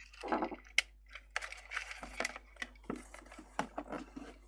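Light, irregular clicks and rattles of small plastic parts and a circuit board being handled on a workbench, as an opened Revitive foot machine is taken apart.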